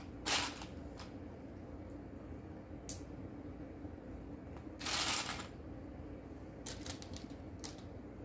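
Small plastic Lego pieces being handled: scattered sharp clicks and taps, a brief rustle near the start and a longer rustle about five seconds in, over a low steady hum.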